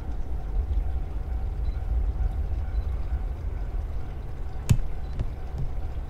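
Wind buffeting the microphone as a steady low rumble, with a single sharp click a little over four and a half seconds in.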